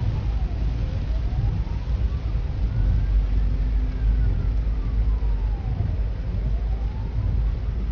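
Hong Kong Fire Services ambulance siren sounding a slow wail, its tone rising and falling over about five seconds per cycle. It is heard from inside a following car, over a loud steady low rumble.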